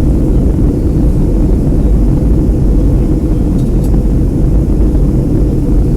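Steady, loud low roar inside the passenger cabin of a Boeing 757 on its approach to land: engine and airflow noise heard from a window seat.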